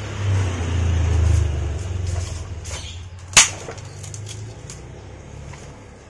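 A steady low engine rumble that swells in the first second or so and then slowly fades, with one sharp click about three and a half seconds in.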